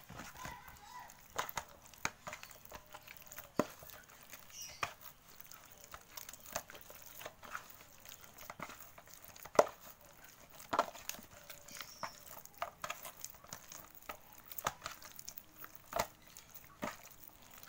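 Hands kneading soft, sticky flour dough in a plastic bowl: irregular squelches, slaps and clicks, with one louder slap about ten seconds in.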